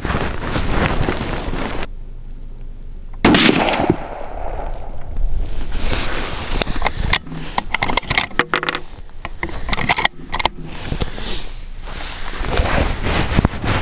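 A rifle shot from an Orsis 120 bolt-action rifle about three seconds in: a sudden loud report with a short fading tail. Clicks and handling noise follow.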